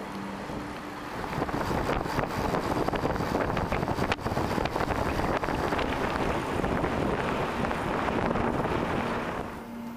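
Wind rushing over the microphone of a camera on a moving bicycle, a steady noisy roar that grows louder about a second in and drops back near the end.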